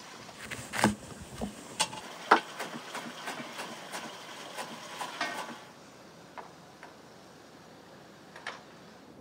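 Large kitchen knife chopping vegetables on a wooden cutting board: irregular sharp knocks, about two or three a second. They stop about five and a half seconds in, leaving faint outdoor ambience with an occasional tick.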